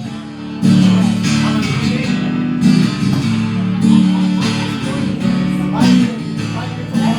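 Live band playing an instrumental passage with no singing, led by strummed and plucked guitar chords. The music dips briefly at the start and comes back in fully under a second in.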